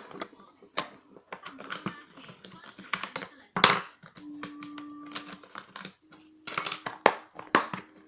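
Clicks and clatter of metal tools and small lock parts being sorted in a plastic compartment box and set down on a wooden bench, with a sharp knock about three and a half seconds in.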